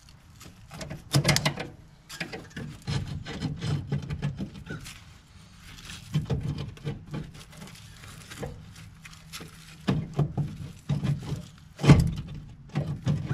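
Hand work on the brake pedal linkage at the firewall, disconnecting the pushrod from the master cylinder: irregular metallic clicks, knocks and glove rustling. Sharp knocks come about a second in and near the end.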